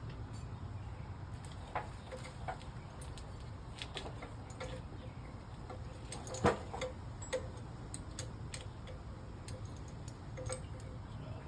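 Light scattered clicks and taps of metal suspension parts being handled as a new sway bar link is fitted into the sway bar end, with one louder knock about six and a half seconds in, over a low steady hum.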